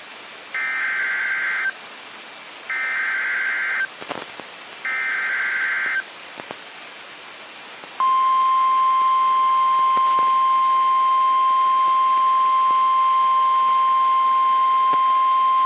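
Three short bursts of SAME header data, the screeching digital code that triggers a NOAA Weather Radio / Emergency Alert System alert, each about a second long with a short gap between. About eight seconds in, the steady 1050 Hz NOAA Weather Radio warning alarm tone starts and holds, announcing a severe thunderstorm warning.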